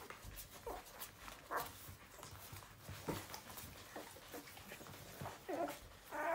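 Newborn puppies squeaking and whimpering while they nurse: several short, thin cries, the loudest about five and a half seconds in, over a run of small wet suckling clicks.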